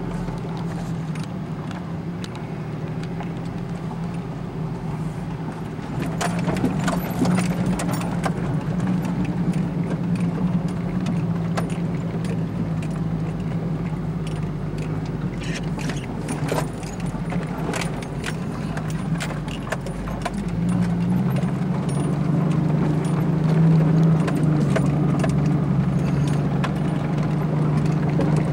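Vehicle engine running steadily, heard from inside the cab while crawling over a rough, rocky dirt track, with loose rattles and knocks from the bumping. The engine note grows louder and a little higher about two-thirds of the way through as it pulls up a rise.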